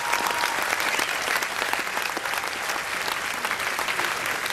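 Large crowd applauding, a steady dense clatter of many hands clapping at once.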